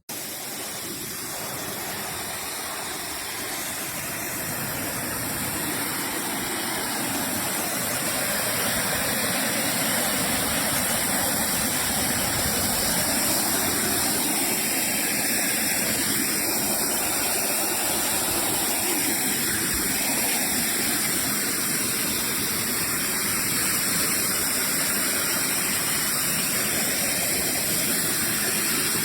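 A 2200W electric pressure washer spraying a high-pressure water jet: a steady rushing hiss of spray that starts suddenly and builds slightly over the first several seconds.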